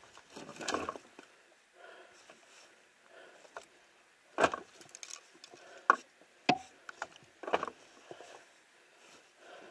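Irregular knocks and scrapes, a handful of sharper strikes among smaller ones, the loudest about halfway through, with no engine heard running.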